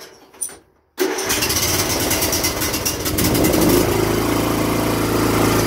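John Deere Sabre riding mower engine turned over by its electric starter about a second in, catching quickly and settling into steady running. It starts right up now that a cracked fuel hose to the fuel pump's diaphragm, which was leaking vacuum, has been replaced.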